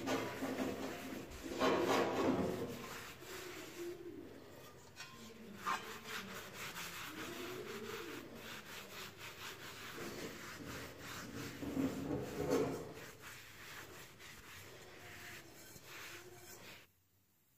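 Cloth rubbing and polishing over the metal lid and domed pan of an antique bed warmer, a continuous scrubbing that swells and fades with the strokes. It cuts off suddenly near the end.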